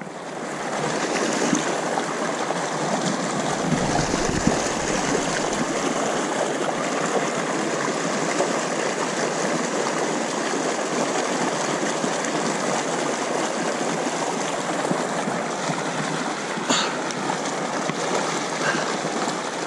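Steady rush of river water flowing over rocks in a riffle, swelling up in the first second. A brief low rumble comes about four seconds in.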